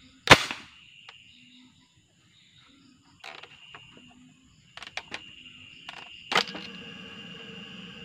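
Sharp plastic clicks and clacks from a homemade PVC gas gun's action being worked by hand, the loudest click about a third of a second in and a few more near the middle and end. Crickets chirp steadily behind.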